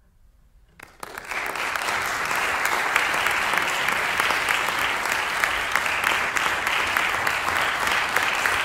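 Audience applause: near silence for under a second, then clapping starts sharply and keeps on steadily.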